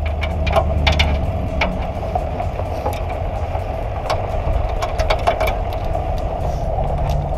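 The 900 hp trophy truck's engine idling with a steady low rumble. Scattered sharp clicks of helmet and harness clips being fastened in the cockpit sound over it.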